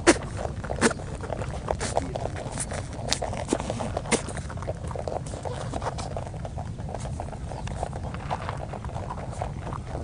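Several rabbits chewing dry feed pellets: a rapid, irregular stream of small crisp crunches and clicks, with a few louder cracks near the start, over a low steady rumble.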